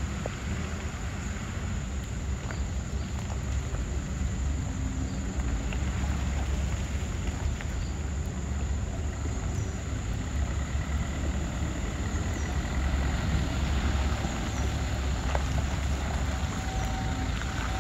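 Loaded lorry's diesel engine running low and slow as the truck creeps over a potholed road, growing gradually louder as it comes closer. A few faint short high chirps sound above it in the second half.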